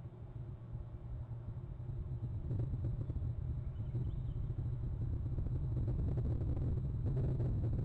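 A low steady rumble that grows louder about two and a half seconds in.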